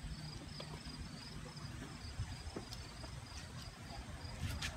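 An insect chirping in a steady, high-pitched pulse, about four chirps a second, over a low background rumble. A short click comes near the end.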